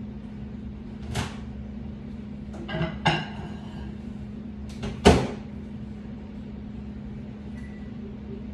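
Over-the-range microwave oven door being opened and shut: a sharp pop of the door about a second in, short ringing clinks around three seconds in as a ceramic mug goes inside, and a loud bang of the door closing about five seconds in, over a steady low hum.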